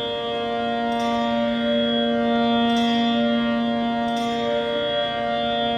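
Tanpura drone: open strings plucked in a slow, even cycle, about one pluck a second, sustaining a steady buzzing drone rich in overtones. It keeps the tonic under the stage before the next raga begins.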